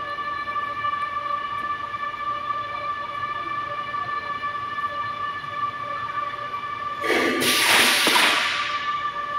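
Electric gearmotor driving a belt conveyor, whining steadily at a high pitch. About seven seconds in, a loud hiss lasts under two seconds.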